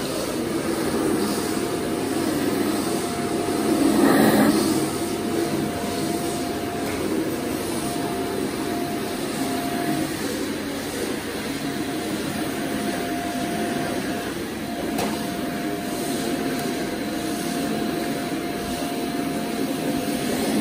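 Canister vacuum cleaner running: a steady motor rush with a thin, even whine, swelling briefly about four seconds in.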